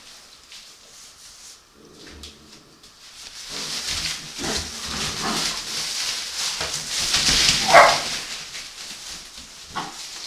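Puppies playing in shredded newspaper bedding: paper rustling and scuffling. There is one loud puppy bark about three quarters of the way in, with a few fainter ones around it.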